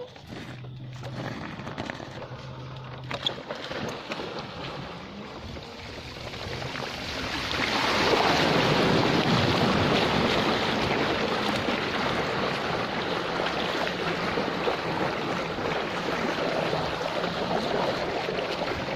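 E-bike rolling along a gravel track, then from about six seconds in riding through floodwater, which turns into a loud, steady rush of splashing and spray that is loudest just after it starts.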